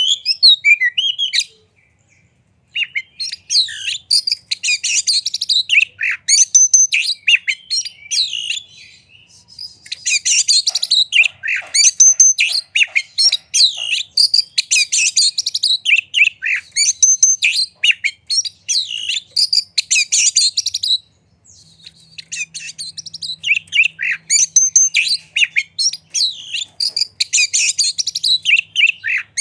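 Oriental magpie-robin singing vigorously: a fast, varied stream of whistled notes and chattering phrases, with short breaks about two seconds in and again around twenty seconds in.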